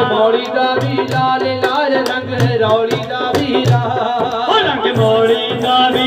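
Live devotional folk music: a bowed string instrument plays a gliding melody over a regular hand-drum beat, with sharp clicks falling on the beat.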